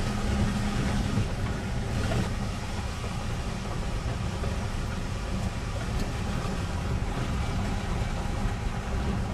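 Car driving slowly over a cobbled street, heard from inside the cabin: a steady low rumble of engine and tyres on stone.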